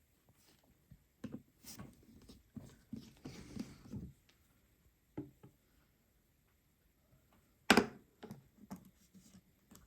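Scattered light clicks and taps of a precision screwdriver and tiny screws and metal connector covers being taken off an iPhone 12 and set down, with a sharper tap about three-quarters of the way through.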